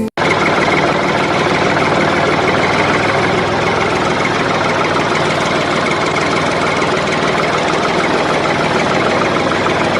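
A small engine running steadily at constant speed, starting abruptly.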